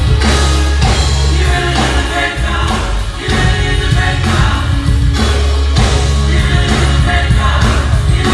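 Loud gospel praise music: voices singing over a band with a heavy, driving bass.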